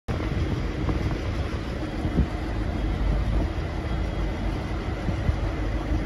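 V/Line N class diesel locomotive, with an EMD 645 V12 two-stroke engine, running at idle with a steady low rumble and a faint hum. A single brief knock comes about two seconds in.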